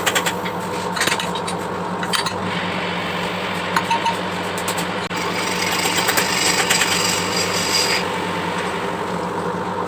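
Brake lathe cutting a car brake drum: the cutting tool scrapes along the turning drum over the lathe motor's steady hum. The scraping dips briefly about halfway through and is brighter for a few seconds after.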